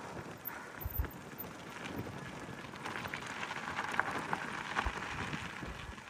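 Gravel bike tyres rolling over a loose, rocky dirt road: a steady crunching hiss with many scattered clicks of small stones and a few low bumps from ruts.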